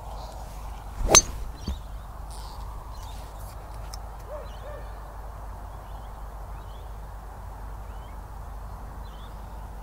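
A single sharp crack of a golf wood striking the ball about a second in, followed by a fainter click, then the steady low background of an open practice ground.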